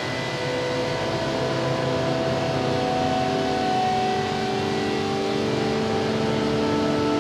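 Ambient music of long, overlapping held tones over a steady hiss, with new notes coming in every second or two.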